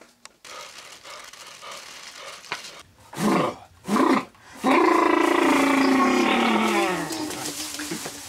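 A person screaming: two short cries, then one long, loud scream that drops in pitch as it fades.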